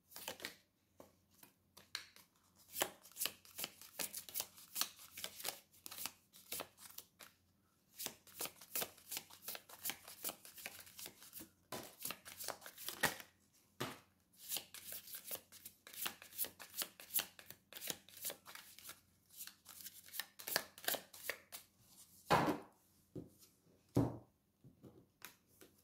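A tarot deck being shuffled by hand: a rapid patter of card clicks in three long runs, followed by two louder thumps near the end.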